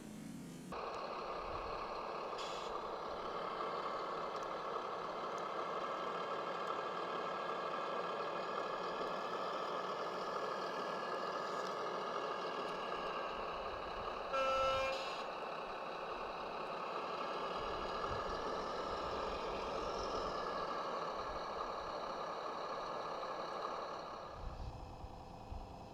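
Remote-control model truck running steadily, with one horn toot of about a second midway.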